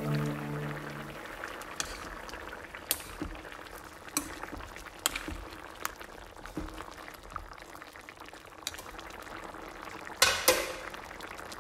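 Chicken curry sizzling and bubbling in a wok on a gas stove, stirred with a metal ladle that clinks and scrapes against the pan every second or so, with a louder clatter near the end. Background music fades out about a second in.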